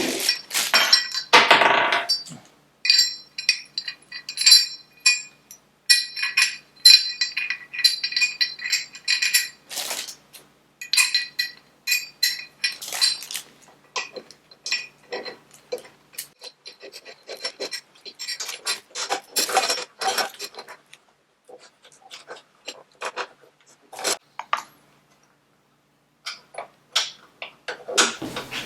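Small metal parts and tools clinking and rattling as a mitre saw is assembled by hand, in irregular clicks, several with a short metallic ring. The clicks thin out to a brief lull about three quarters of the way through, then pick up again.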